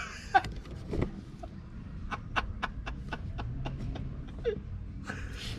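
A run of light, sharp clicks, a few a second, from about two seconds in until near the end, over a low steady hum, with a couple of brief short voice sounds.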